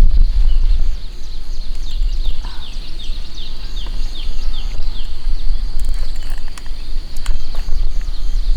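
Outdoor nature ambience: a heavy low rumble of wind on the microphone and a steady high drone, with a quick series of short descending chirps, about three a second, in the first half and a few light clicks later on.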